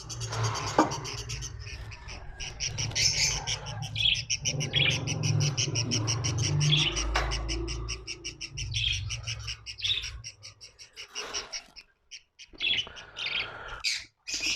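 Small parrots chirping in a fast, even series of high notes, about ten a second, over a low rumble, which both stop about ten seconds in; scattered shorter calls follow.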